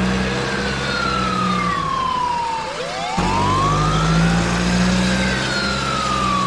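Fire-truck siren wailing, each cycle rising quickly and then falling slowly, twice, over a steady low engine hum. The whole sound cuts off sharply about three seconds in and starts again, like a looped siren clip.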